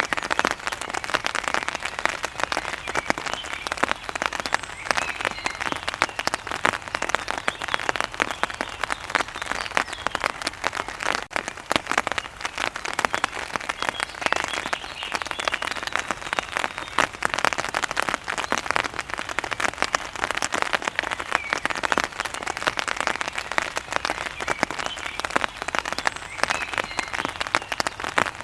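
Heavy rain falling steadily on a hard surface, a dense patter of countless close drops.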